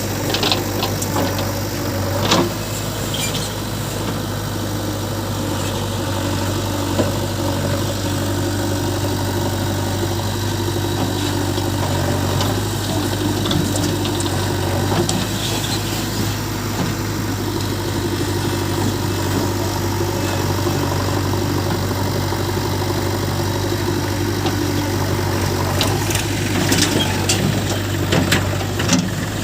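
Heavy diesel machinery running steadily at constant speed with a deep, even hum. Scattered sharp knocks come through now and then, with a cluster of them near the end.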